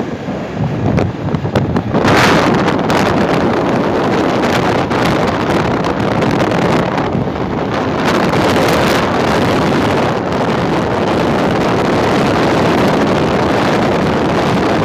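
Wind rushing over the microphone of a phone carried on a moving motorcycle, a loud steady rush that grows stronger about two seconds in.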